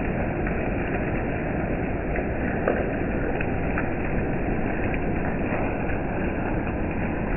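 Steady rain falling, an even hiss with a few faint ticks of drops here and there.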